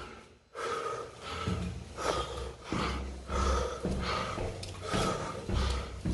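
A man breathing hard and fast, about two breaths a second, out of breath from climbing many flights of stairs.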